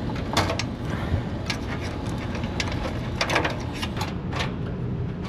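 Scattered short clicks and knocks of hand work on an air-conditioner condensing unit, about seven in all, over a steady low hum.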